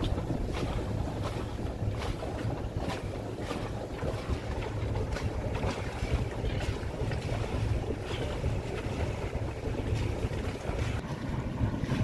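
Sailboat's engine running steadily at low revs, with wind on the microphone and water washing along the hull.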